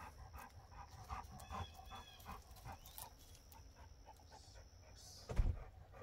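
A dog panting in quick, soft breaths, several a second. A single loud, low thump comes just past five seconds in.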